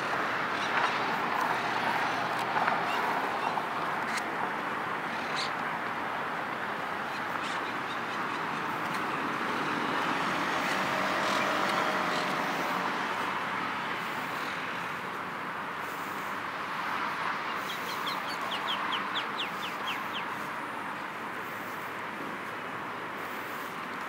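Steady hum of city traffic from the surrounding streets. About three-quarters of the way through, a bird gives a short, quick, chattering call.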